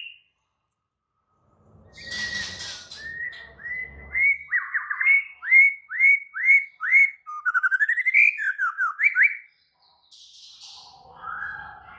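White-rumped shama in agitated, aggressive song: a run of about eight clear upslurred whistles at roughly three a second, then a quick rising trill and a few falling notes. The song starts after a short silence and a brief rustle, and fainter calls follow near the end.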